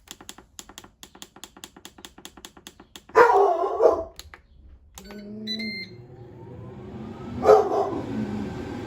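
An air fryer being set for another five minutes: a quick run of button clicks as the time is stepped up, then a short beep and the fan starting, its whine rising as it spins up before running steadily. Two loud short bursts cut in, about three seconds in and again near the end.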